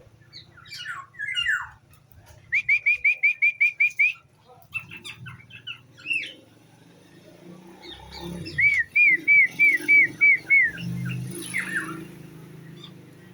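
Songbirds calling: a black-naped oriole and a long-tailed shrike. Scattered chirps are broken by two quick runs of about eight repeated whistled notes, one a few seconds in and one near the middle, over a low steady hum.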